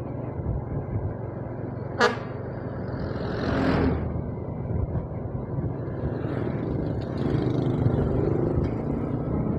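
Road traffic heard while travelling: a steady low vehicle rumble, a brief horn toot about two seconds in, and another vehicle rushing past around three and a half seconds in.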